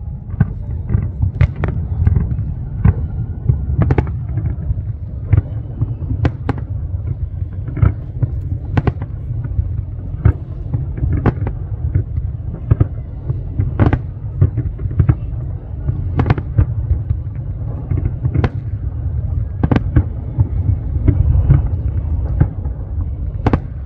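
Fireworks display: aerial shells bursting one after another, about one or two sharp bangs a second, over a steady low rumble.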